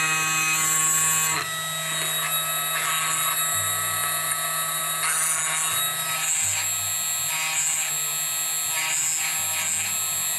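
Screw-Saver screwdriver grinder running: its motor whines steadily while a carbide burr grinds a slotted screwdriver's steel blade down to width. The grinding comes in repeated passes, a rasp every second or two, the first and longest in the opening second and a half.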